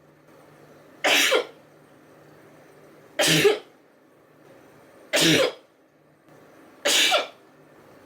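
A woman sneezing four times, each a short, sharp burst, about two seconds apart.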